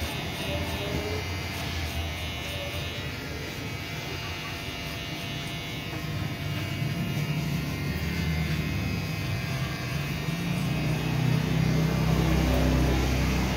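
Electric hair clippers buzzing steadily as they are run over a shaved, bald scalp, getting louder near the end.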